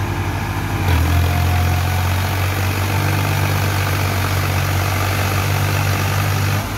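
Sonalika tractor's diesel engine running hard under load as its rear cage wheels spin in deep mud, trying to pull the stuck tractor free. The engine gets louder about a second in and eases off near the end.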